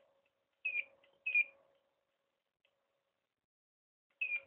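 Profoto D1 studio flash head firing twice in quick succession, each shot a short, sudden high chirp falling in pitch, then nothing for a few seconds before it fires again near the end. The unit fires only intermittently, a fault the technician lays to an unstable firing circuit.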